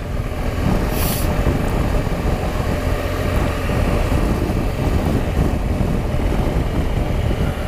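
BMW R1200 GS flat-twin boxer engine running on the move, mixed with heavy wind rushing over the camera microphone and road noise; a short hiss about a second in.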